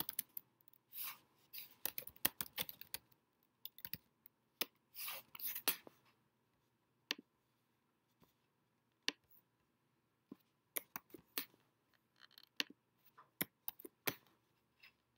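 Scattered sharp clicks and short scratchy rubbing sounds from a computer's keyboard and mouse being worked. The sounds are dense in the first six seconds and turn into single clicks after that.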